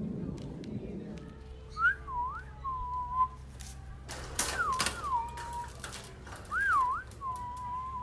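A person whistling to goats: three short whistled calls, each a quick swoop up and down that settles into a held steady note.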